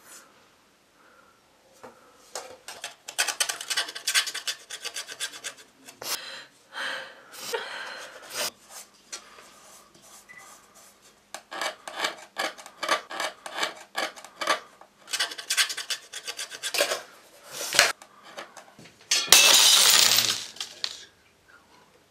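Rapid scraping and rasping strokes in clusters, with a pause in between, then a louder burst of noise near the end.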